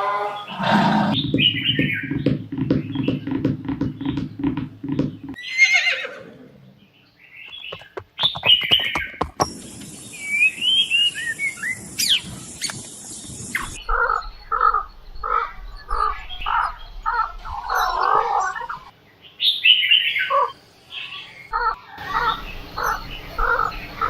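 A succession of different animal sounds, mostly bird calls: chirps and squawks. The second half is a long run of short calls repeated about twice a second.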